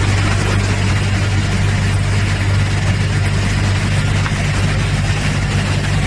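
Six-spindle four-sided wood moulder running steadily: a deep, even hum over a broad whir.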